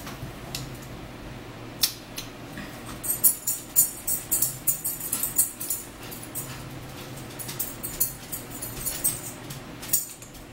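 A run of light metallic jingling and rattling, densest a few seconds in and sparser afterwards, over a steady low hum.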